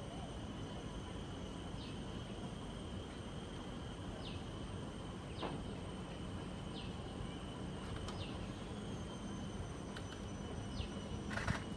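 Wetland ambience: a steady, high insect drone with short, falling bird calls every second or two, over a low rumble. A brief, louder burst of noise comes near the end.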